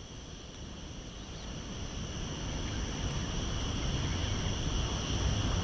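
Night insects trilling steadily in an even, high-pitched drone, over a low rumbling noise that slowly grows louder.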